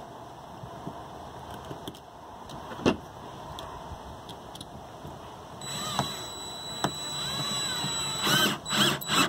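DeWalt cordless drill/driver driving a screw through a cable strap: it runs steadily with a high whine for about two and a half seconds, then in a few short bursts near the end. A single sharp click comes about three seconds in.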